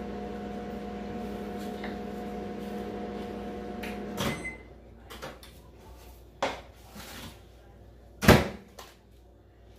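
A steady electrical hum from a kitchen appliance that cuts off with a click about four seconds in. Then come scattered light clicks and knocks of household objects, the loudest a sharp knock about eight seconds in.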